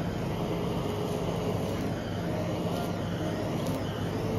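Handheld butane blowtorch burning with a steady rushing hiss as its blue flame sears nigiri on a stone slab.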